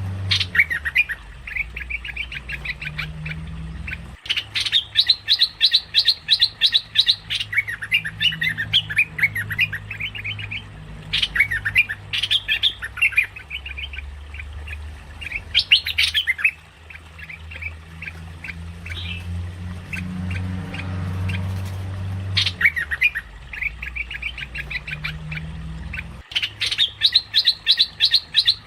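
Merbah lekir bulbul calling: runs of rapid, sharp chattering notes, repeated with short gaps and a longer pause about two-thirds of the way through, over a steady low hum. It is played as a lure call for trapping the bird.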